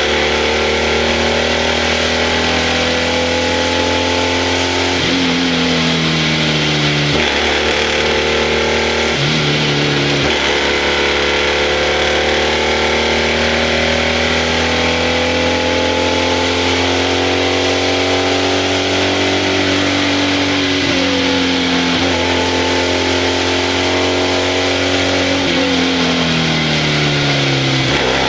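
BMW 700 RS's air-cooled flat-twin racing engine, heard from the cockpit while driven hard uphill. The revs climb and fall with gear changes and bends: several quick drops in the first ten seconds, a long slow climb through the middle, and more changes near the end.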